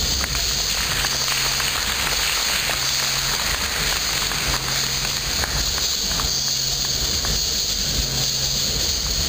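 Steady hiss with a low hum and scattered faint clicks: the background noise of the hall and the recording.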